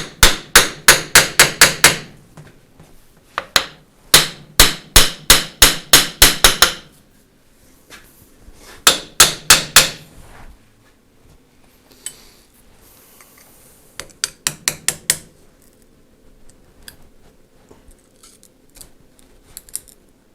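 Hammer blows on the M418G starter motor held in a vise, struck in quick runs of about five a second in four bursts, the last one lighter, then a few faint ticks. The parts won't come free because the vise is nipping the casing.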